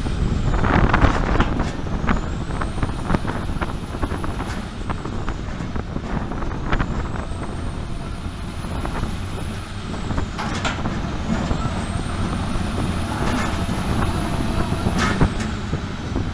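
Soilmec SR-75 rotary piling rig working: a deep steady diesel-and-hydraulic rumble with scattered metal clanks, and a high whine that rises, holds and then falls away, three times over.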